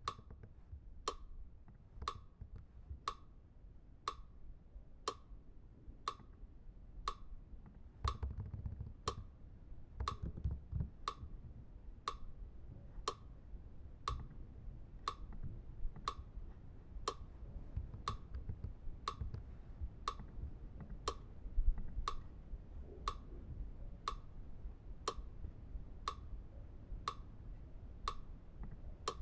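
Steady, even ticking, about one short tick a second, each with a brief ping, over a low rumble.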